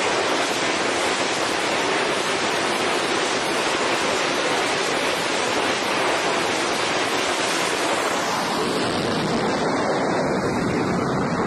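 An F-35C's single F135 turbofan running at full power on a carrier catapult, a loud steady rush of jet noise. About eight seconds in the jet is launched, and the hiss thins as it pulls away.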